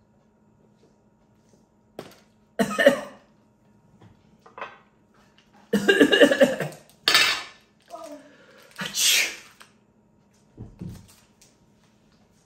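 Trading cards and a small metal card tin being handled, with scattered clinks, rustles and a low thump near the end, broken by a few short non-word vocal sounds.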